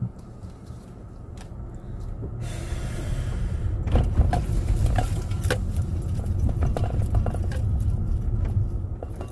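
Car being driven, heard from inside the cabin: a low road rumble that grows louder about four seconds in. Over it comes a run of light rattles and clicks.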